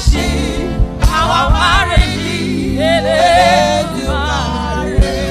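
Gospel praise music: voices singing with wavering vibrato over a band with steady bass and drum hits.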